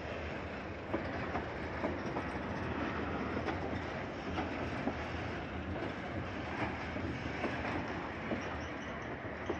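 Freight train of covered hopper wagons rolling slowly past, steel wheels clicking over the rail joints about twice a second over a steady rumble.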